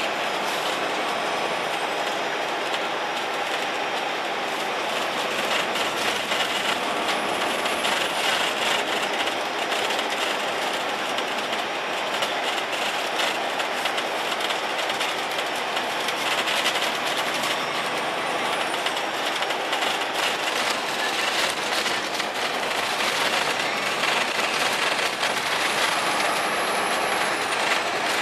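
Cummins ISL8.9e diesel engine of an Alexander Dennis Enviro500 double-decker bus running under way, heard from inside the bus over steady road noise and body rattle.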